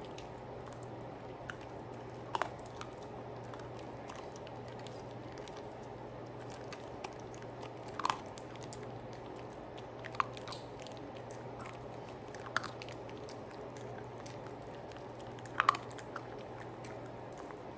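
A small dog crunching dry kibble: a handful of short, sharp crunches a few seconds apart, the loudest a double crunch near the end, over a faint steady low hum.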